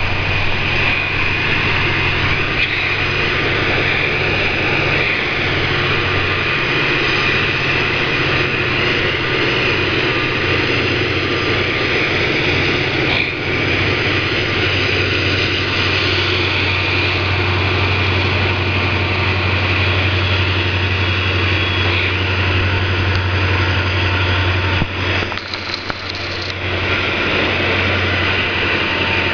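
Two EMD SD40-2 freight diesel locomotives passing while hauling a train, their 16-cylinder EMD 645 engines giving a steady, loud low drone over the train's running noise. The drone drops briefly for a second or two about 25 seconds in.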